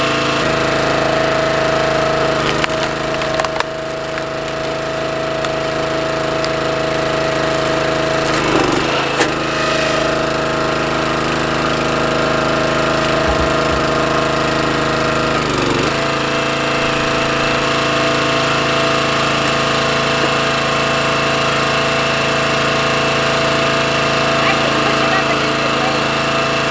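Small gasoline engine of a Mighty Mac hydraulic log splitter running steadily, its pitch sagging briefly under load as the ram pushes into a log, around three, nine and sixteen seconds in. A sharp crack of wood splitting comes about nine seconds in.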